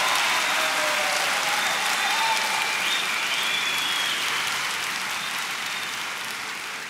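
Theatre audience applauding, with a few voices calling out above the clapping; the applause fades gradually toward the end.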